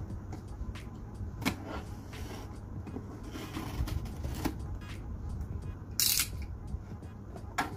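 Box cutter slicing along the packing tape on a cardboard box, with a few sharp clicks, then a short loud scrape about six seconds in as a cardboard flap is pulled open.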